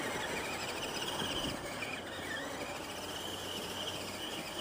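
Electric RC truck's motor whining at a distance as it is driven, the high whine wavering and dipping about halfway through as the throttle eases, then rising again.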